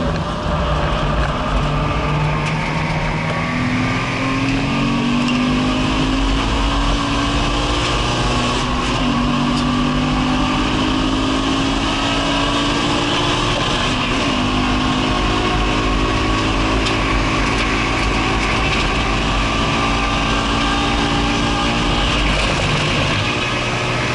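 Naturally aspirated Subaru BRZ flat-four engine heard from inside the cabin, pulling hard on track, its pitch climbing and dropping back several times as the driver works through the revs, over a steady hiss of road and wind noise.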